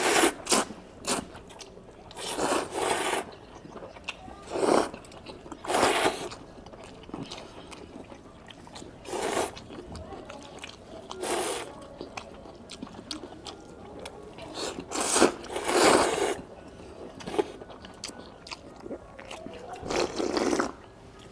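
Close-up eating sounds: hele noodles being slurped and chewed, in loud bursts every one to three seconds with quieter chewing between.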